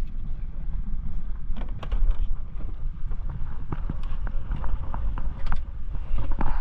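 Low wind rumble on the microphone aboard a small fishing boat. Scattered knocks and clatter run through it, loudest about two seconds in and again near the end.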